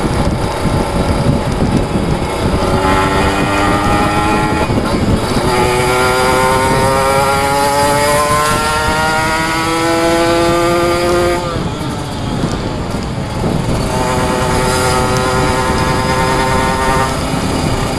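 Kawasaki Ninja RR two-stroke single-cylinder engine under hard acceleration, its pitch climbing again and again through gear changes. About eleven seconds in the revs fall away as the throttle eases, then the engine picks up and holds a steadier note.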